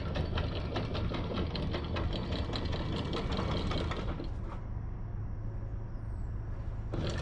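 A small boat engine running with a fast, even mechanical clatter over a steady low hum.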